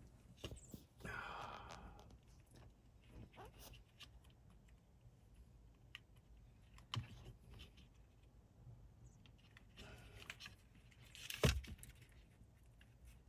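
Scattered small clicks and rustles of wires and a plastic wiring connector being handled, with one sharper click near the end.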